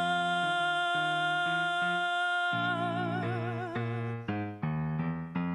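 A woman singing one long held note, with vibrato coming in before it fades about three and a half seconds in, over chords played on a digital piano about twice a second.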